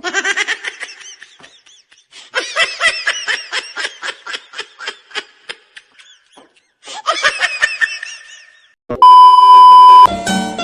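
High-pitched laughter in three runs of rapid 'ha' pulses, then near the end a loud, steady electronic beep lasting about a second.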